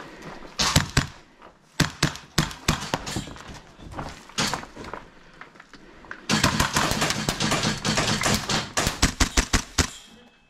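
Gas blowback airsoft rifle firing: a few scattered sharp shots, then a faster string of shots over the last few seconds.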